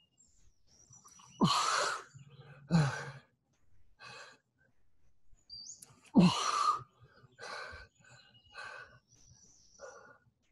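A man breathing hard through cobra push-ups: a run of sharp, forceful exhales about every second and a half. The two loudest, about a second and a half in and again near six seconds, have a voiced, grunt-like start. Faint bird chirps come and go in the background.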